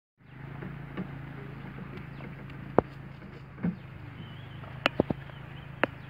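Motorbike engine idling with a steady low hum, with a few sharp clicks over it.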